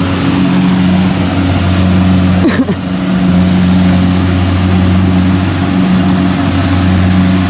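Kubota DC70 Pro combine harvester's diesel engine running steadily under load while cutting and threshing rice, a constant low drone.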